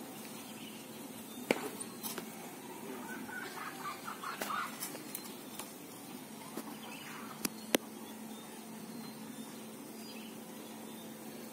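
Chickens clucking in a short run about three to four and a half seconds in, over a steady low hum. A few sharp knocks fall through it, the loudest two about a second and a half in and about seven and a half seconds in.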